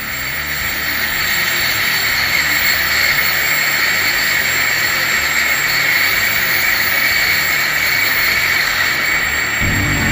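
Homemade turbojet engine running steadily at high power: a loud, even rushing noise with a high whine, building a little over the first couple of seconds.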